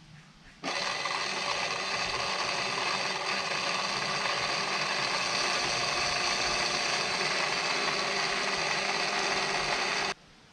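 SPID RAU azimuth rotator's worm-drive motor and gearbox running under remote control, turning the mast clamp after being freed from seizure. It starts suddenly just under a second in, runs steadily with a gear whine, and cuts off abruptly near the end.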